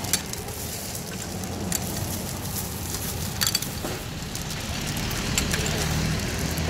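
Thin plastic bag crinkling and rustling as small plastic jelly cups are dropped into it, with a few sharp clicks as the cups are handled. A low steady hum lies underneath.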